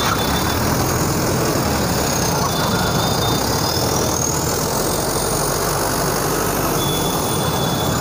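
Steady din of road traffic, a continuous rumble of engines and street noise without a break.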